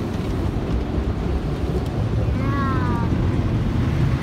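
Automatic car wash spraying water over the car, a steady low rushing noise heard from inside the cabin. A short high-pitched voice sounds over it about two and a half seconds in.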